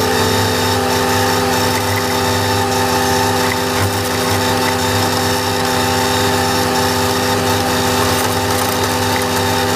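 Valtra A93 tractor's diesel engine running steadily under load while its PTO drives an Agrimaster KP2600 flail mower cutting grass: a constant drone with steady whining tones.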